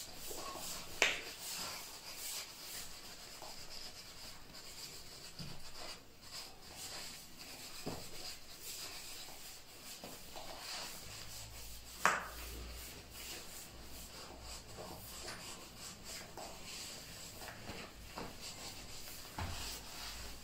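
A cloth buffing gold gilding wax on a gilded wall sconce: faint, ongoing rubbing, with two sharp clicks, about a second in and about twelve seconds in.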